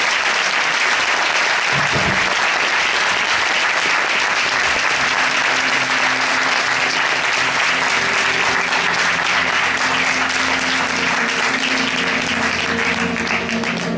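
Theatre audience applauding steadily. Music fades in beneath the clapping in the second half and grows louder toward the end.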